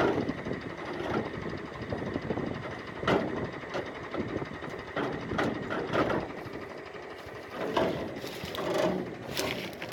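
Tractor engine running steadily at idle, with several sharp metal knocks and clanks as the pipes and clips of the wheat-straw chopper hitched to it are fitted.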